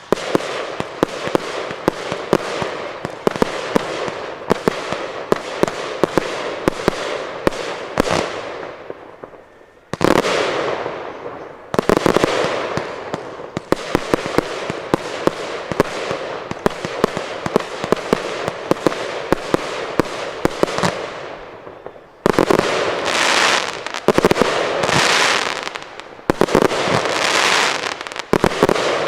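Aerial fireworks going off in quick succession: dense, rapid crackling and popping bursts with hissing tails. The crackle fades briefly, then starts again with a sudden blast about ten seconds in, and several more sudden loud bursts follow in the last third.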